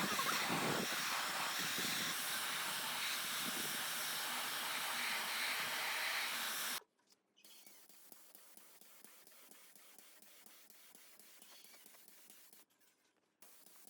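A steady, loud hiss of spraying air or gas that cuts off suddenly about seven seconds in, followed by faint scratching and light ticks.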